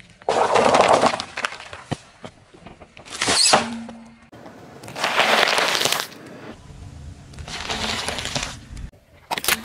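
A car tyre rolling over and crushing a series of objects: paper cups, a foil balloon and lettuce leaves. It is heard as four separate bursts of crunching and crackling, with short quieter gaps between.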